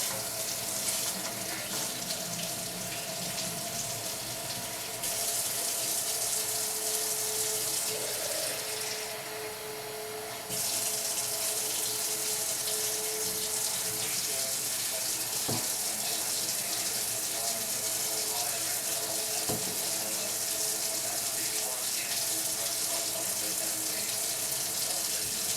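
Tap water running hard into a sink, the flow changing a couple of times, with two light knocks; the tap is turned off near the end.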